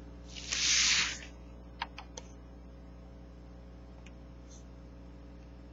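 Paper sales circular rustling briefly as it is handled, about half a second in, followed by three small clicks, over a steady low hum.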